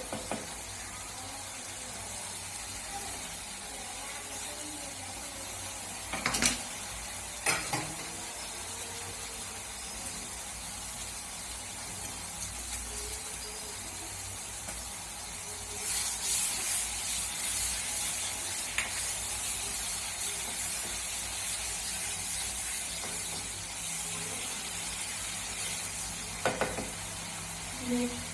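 Masala paste frying in oil in a pan with a steady sizzle, louder for a few seconds past the middle, stirred with a spoon that knocks against the pan a few times. The masala is being fried on low heat until the oil separates from it.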